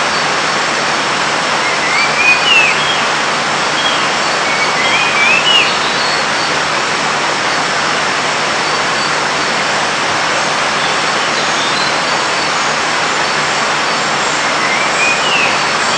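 Steady, loud, even hiss of forest ambience. A short rising bird call sounds over it a few times: about two seconds in, around four to five seconds in, and near the end.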